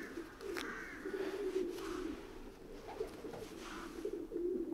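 Racing pigeons cooing, an unbroken run of low cooing phrases.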